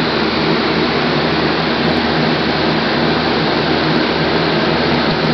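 Steady loud rushing machine noise with a constant low hum underneath, unchanging throughout.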